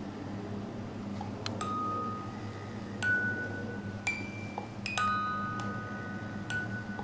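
Sparse chime notes, struck one at a time about a second apart, each left to ring, over a low steady hum.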